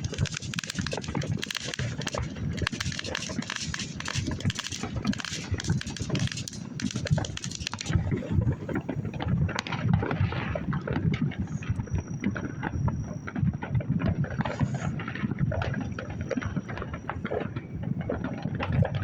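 Consumer fireworks going off in a dense run of pops and crackles for the first several seconds, then in more scattered bangs, over wind rumbling on the microphone.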